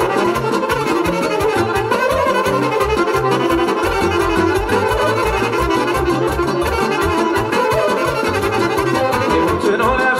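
Instrumental Romanian folk music from a band, brass and violin carrying the tune over a steady, evenly pulsing bass beat.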